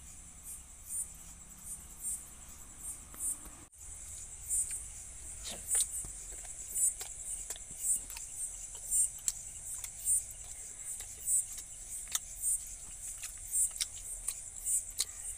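Crickets chirping in a steady high-pitched pulse, about two chirps a second, with scattered soft clicks and taps from someone eating by hand close to the microphone.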